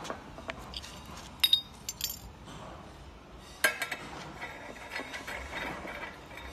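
Metal parts of a coat stand clinking and knocking together during assembly. A sharp ringing clink comes about a second and a half in, with more knocks near two seconds and near four seconds, then softer handling noise.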